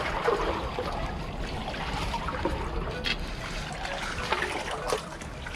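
Water trickling and sloshing in a rocky tide pool, with a few sharp clicks about halfway through and near the end.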